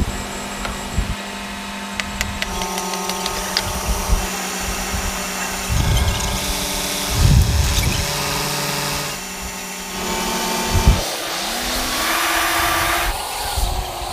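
Heavy machinery running with a steady mechanical whine made of several held tones that change now and then, one of them rising in pitch near the end. A few short low rumbles come through along with it.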